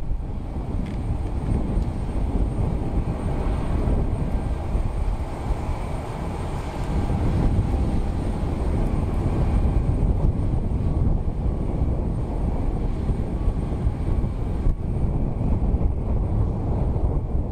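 Airport ramp noise: a steady low rumble of jet aircraft engines, with a thin high whine above it.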